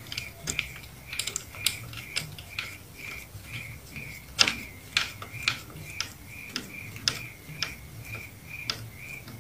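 Light, irregular clicks and taps of a screwdriver and plastic parts as an on/off switch is fitted inside an opened Polytron PCR 530 cassette deck, with a sharper knock about four and a half seconds in. A faint short chirp repeats about twice a second behind it.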